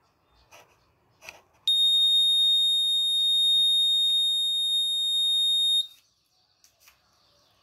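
Piezo buzzer on an Arduino school bell board sounding one steady, high-pitched beep for about four seconds. It starts about a second and a half in and cuts off suddenly. This is the scheduled school bell alarm going off at its set time.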